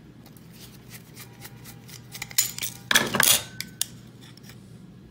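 Small metal parts being handled: light clicks as a screw on an aluminium heatsink is backed out with a precision screwdriver, then a louder run of metallic clinking and clattering around the middle as the heatsink and screw are worked loose from the circuit board.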